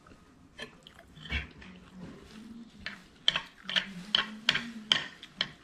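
Close-up eating sounds: a regular run of sharp, clicky smacks, about two or three a second, starting about three seconds in, over a faint steady low hum.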